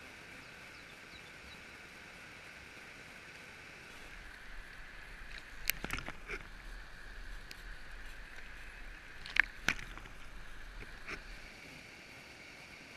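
Steady faint rush of a flooded, fast-flowing creek. From about four seconds in to about eleven, handling knocks and a low rumble from the camera being moved sit on top of it, the loudest a pair of sharp knocks near ten seconds in.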